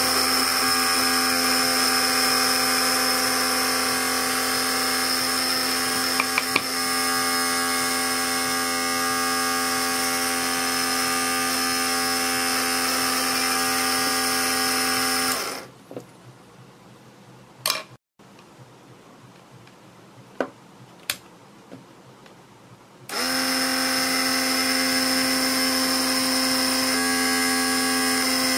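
Small 12 V DC motor of a homemade mini drill press running with a steady whine while drilling a copper-clad circuit board. It cuts out about halfway through, a few sharp clicks sound in the quiet, and it starts up again about eight seconds later, running steadily as before.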